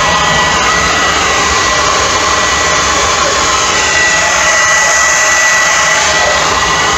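Forge blower forcing air through a PVC pipe into a wood and charcoal fire, heating a knife blade for hardening: a loud, steady rush of air and fire with a thin, steady high tone over it.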